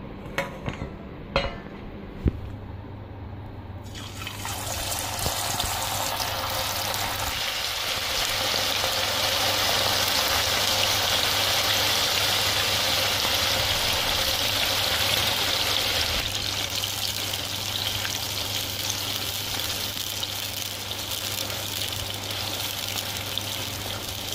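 Beef pieces deep-frying in hot oil in a pot, a loud steady sizzle that starts abruptly about four seconds in. A few sharp knocks come before it, over a low steady hum.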